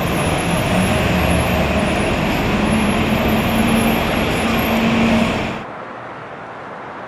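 Loud, steady traffic noise at an airport arrivals curb, with an engine's low hum. About five and a half seconds in it cuts off suddenly to quieter, more distant traffic.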